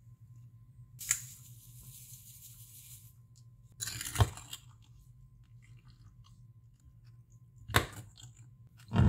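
A metal spoon pressing and stirring raspberries into sugared lemon slices in a glass tumbler. A short rustling hiss comes about a second in, a wet scrape and a sharp clink of spoon on glass come midway, and another clink comes near the end. A louder thump lands right at the close, over a low steady hum.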